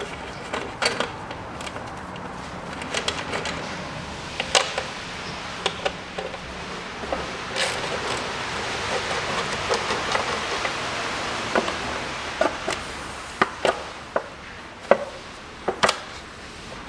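Hand tools and a plastic engine cover on a Kia Rio's 1.4 engine being worked with: scattered sharp clicks and knocks as the cover bolts are undone and the cover is handled. A stretch of soft, even noise runs through the middle.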